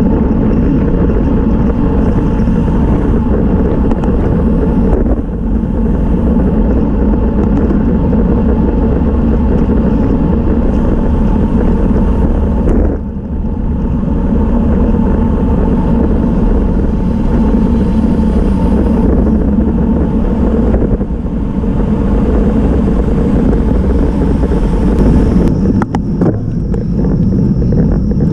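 Loud, steady wind rumble on the microphone of a camera mounted on a road bike ridden in a race pack at close to 30 mph. A few clicks sound near the end, as the speed drops on a climb.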